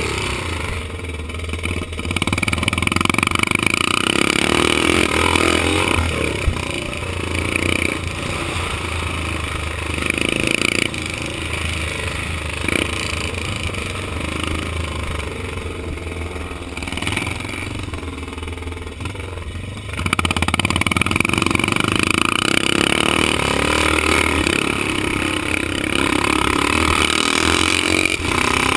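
Vintage 500 cc motocross motorcycle engine heard from on board at race pace, revving up and down through the turns, with a second bike running just ahead. It gets louder about two-thirds of the way through as the throttle is held open.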